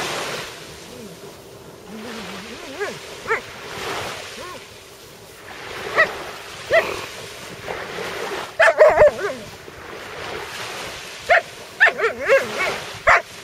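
Alaskan Malamute whining and yipping in short, pitch-bending calls, with a quick run of yips about nine seconds in and another near the end.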